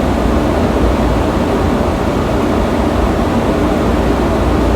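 Steady rumble and hiss of a Washington Metro railcar standing at a station platform with its doors open, its ventilation and onboard equipment running.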